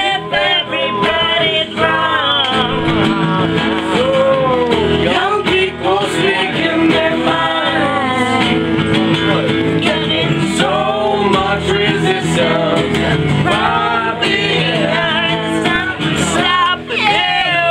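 Music: a song with male singing over guitar.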